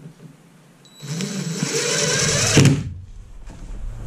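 DeWalt 20V cordless drill driving a screw into wood shiplap, its motor starting about a second in, running for under two seconds and stopping abruptly.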